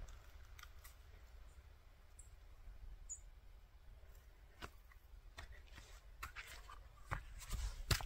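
Faint footsteps of foam clogs on bare rock, the taps growing more frequent and louder near the end, with two brief high chirps early on.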